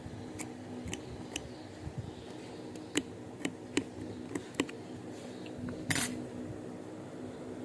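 Light clicks and taps of small metal tools working on a quartz wristwatch, a dozen or so scattered irregularly, with a brief louder scrape about six seconds in.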